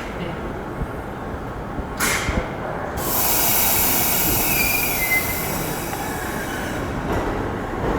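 Seibu Tamagawa Line train pulling out of the station, its wheels squealing and hissing on the rails from about three seconds in, with a thin whistling tone near the middle, easing off near the end.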